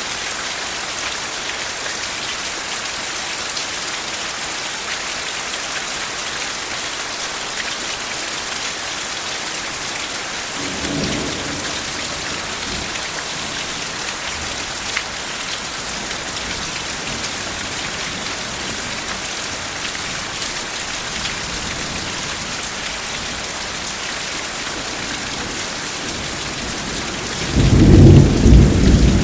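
Steady heavy rain falling. A faint roll of distant thunder comes about a third of the way in, and a much louder low thunder rumble starts near the end.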